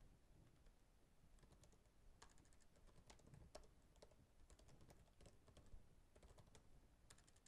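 Faint typing on a computer keyboard: irregular runs of key clicks as a message is entered.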